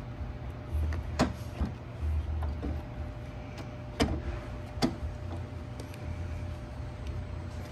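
Small metal clicks and knocks as the bolts and steel bracket of a treadmill motor are handled and fitted by hand. The sharpest knocks come about a second in, twice around four to five seconds in, and there is an intermittent low rumble underneath.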